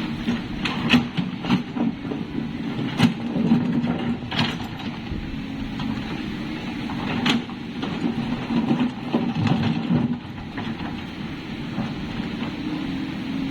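Excavator's diesel engine running steadily, with several sharp metallic clanks scattered through.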